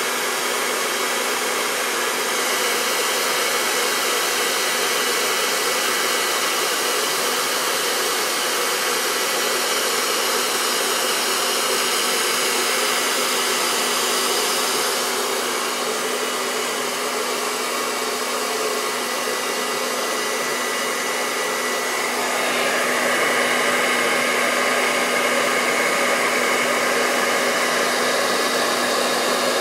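Hand-held blow dryer running steadily, a continuous rush of air over a constant motor hum, blowing hot air down onto wax crayons to melt them. Its tone changes about halfway through, and it gets a little louder about three-quarters of the way in.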